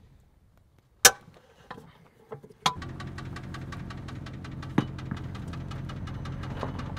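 A sharp clack, then a motor starts abruptly and runs steadily with a low hum and a fast, even ticking.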